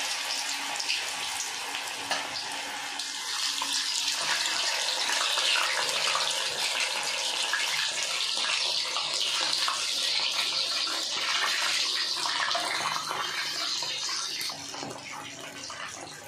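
Battered chicken-and-potato pieces deep-frying in hot oil: a steady sizzle with fine crackling, growing louder a few seconds in as more pieces go into the oil and easing off near the end.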